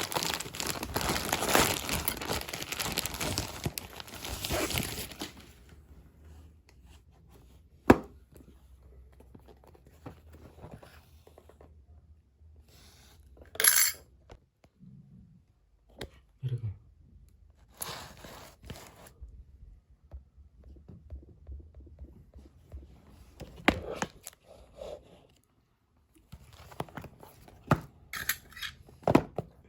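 Packaging being torn open and handled: about five seconds of tearing and crinkling, then scattered clicks, taps and short rustles as the box and its contents are handled.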